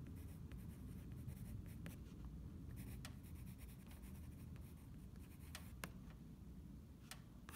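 Pencil writing on paper fixed to a board: faint scratching strokes, with a few light clicks as the letters go down.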